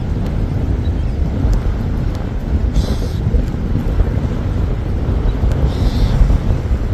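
Wind buffeting the microphone: a heavy, gusting low rumble. Two short high hisses come through, about three seconds and six seconds in.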